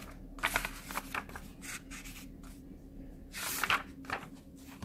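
Pages of a book being turned, several short paper rustles over a faint low hum.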